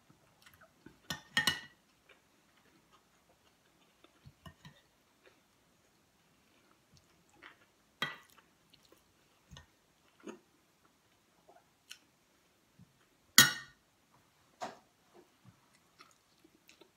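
Scattered sharp clinks and taps of tableware, a metal spoon scooping from a ceramic serving bowl and food handled on a plate, with quiet chewing between. The loudest clinks come about a second in and again about two thirds of the way through.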